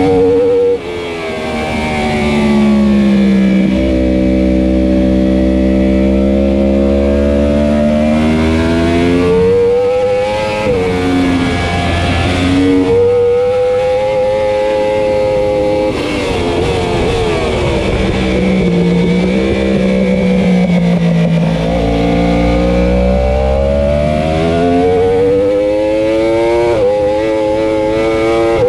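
2015 Yamaha R1's crossplane inline-four racing engine at full race pace. Its note drops twice as the bike brakes and downshifts for corners, and climbs twice under hard acceleration, with quick breaks in the note at the upshifts. Heavy wind rush sits under it on the bike-mounted camera.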